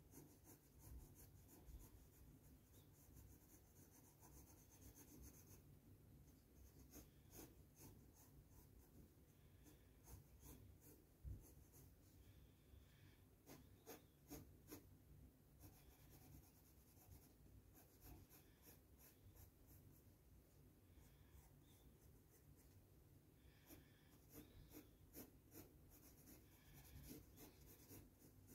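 Faint scratching of a Crayola colored pencil on sketchbook paper while colouring in, in runs of quick short strokes with brief pauses between them.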